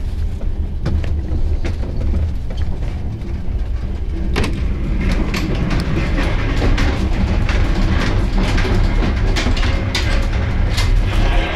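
Moving passenger train heard from inside a sleeper carriage: a steady low rumble with scattered sharp clicks and knocks, more of them from about four seconds in.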